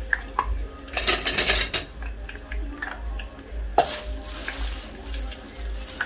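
Garlic sizzling and crackling gently in hot oil in a stainless saucepan, with a plastic bag of raw peanuts crinkling about a second in and a single sharp knock just before four seconds.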